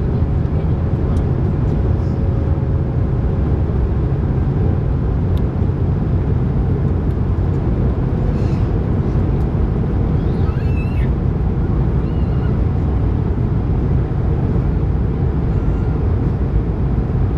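Airliner cabin noise inside an Airbus A220-300 in flight: the steady, deep rumble of its Pratt & Whitney PW1500G geared turbofans and the airflow past the fuselage. A faint hum fades out in the first few seconds.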